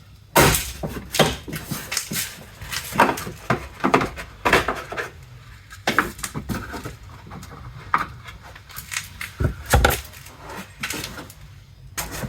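Plastic tailgate trim panel being pried and pulled loose by hand: irregular plastic clicks, creaks and knocks as its clips give, with one heavier thump near the end.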